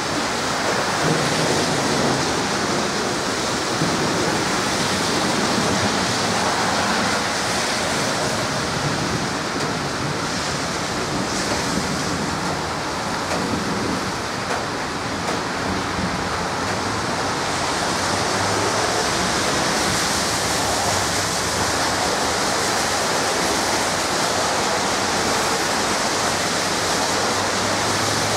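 Heavy downpour: a steady, even rush of rain.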